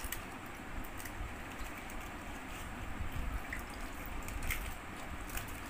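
Panipuri being eaten: puris dipped into cups of spiced water and bitten, heard as a few small clicks and crunches with faint liquid sounds over a steady background hiss.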